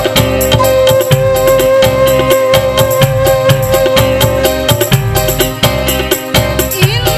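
Gambus band music: a bamboo transverse flute holds one long high note over steady percussion with tambourine-like jingles. Near the end a woman's singing voice comes in.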